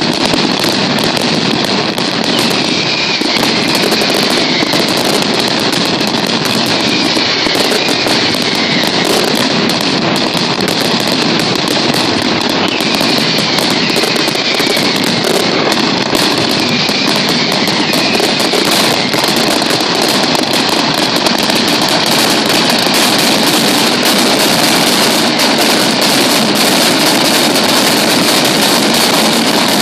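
Mascletà: strings of firecrackers (masclets) hung on ropes exploding in a loud, dense, unbroken barrage of bangs.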